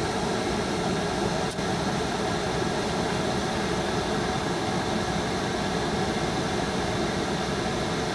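Steady rush of air from a 2013 Ford Explorer's HVAC blower fan, running in defrost-and-foot mode. There is one faint brief tick about a second and a half in.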